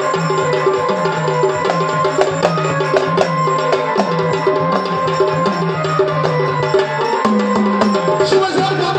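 Instrumental passage of Marathi gondhal folk music: a keyboard melody over a held drone, with steady drum and percussion strikes keeping the beat.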